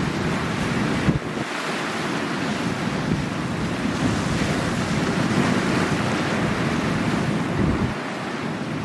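Sea waves surging and washing on the shore, swelling through the middle and easing near the end, with wind buffeting the microphone.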